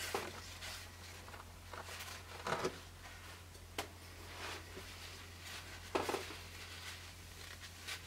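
Faint rustling of a paper towel wiping a steel sword blade, with a few soft swishes and a small click, over a steady low hum.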